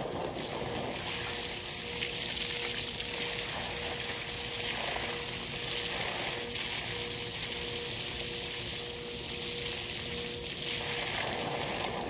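Stream of spring water falling from a pipe spout and splashing onto a person's head and body, a steady dense splashing that starts about a second in and eases off near the end.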